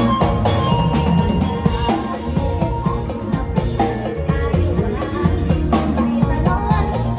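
Isan-style band music played on a drum kit and keyboard: a steady kick-and-snare beat under the keyboard's melody, with no singing.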